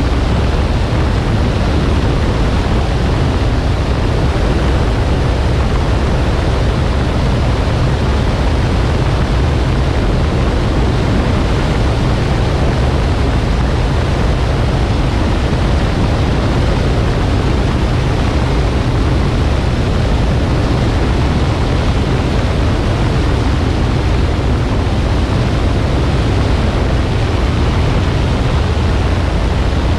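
Steady, loud rush of wind over the microphone of a camera flying aloft, heaviest in a low rumble. No motor tone or separate sounds stand out from it.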